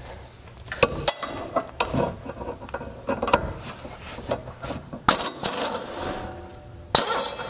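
Scattered metallic clinks, knocks and rattles of a socket extension and cordless driver being fitted to a subframe bolt, with a louder clattering burst near the end.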